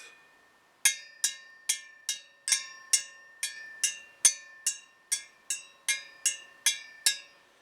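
Spokes of a rebuilt Yamaha PW80 rear wheel struck one after another, about sixteen taps at an even pace, each giving a short ringing note. The notes sound pretty much the same, the sign of evenly tensioned spokes.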